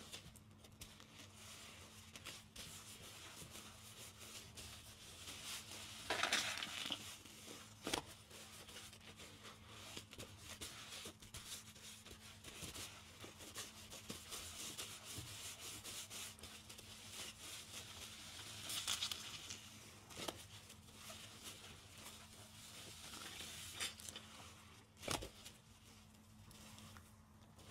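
Soap-foam-soaked car sponges being squeezed and kneaded by hand: a steady wet crackling and squelching, with louder squeezes about six, nineteen and twenty-three seconds in. A few sharp clicks are heard around eight, twenty and twenty-five seconds in.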